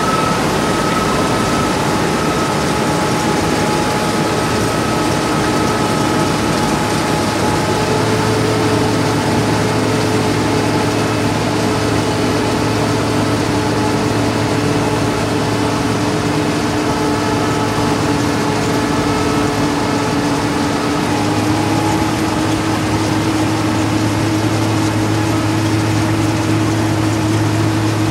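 Asphalt cold milling machine running and cutting along the curb: a loud, steady diesel drone over the grinding hiss of the cutting drum. Its humming tones shift slightly about eight and twenty-one seconds in.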